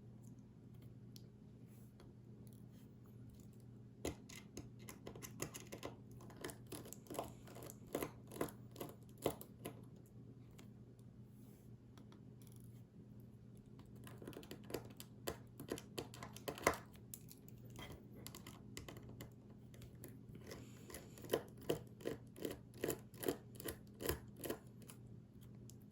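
Small sharp clicks and taps of hand tools on an iPhone 5's metal and plastic parts during a teardown, in irregular clusters, over a steady low hum.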